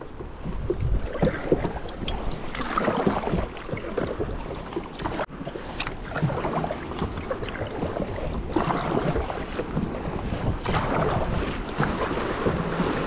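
Sea kayak being paddled on open water: water splashing and sloshing around the hull and paddle blades in irregular surges, with wind buffeting the microphone.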